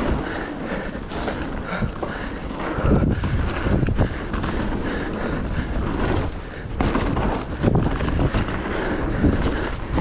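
YT mountain bike rolling fast down a dirt trail: tyres rushing over the ground, with the bike rattling and knocking over bumps and wind buffeting the microphone.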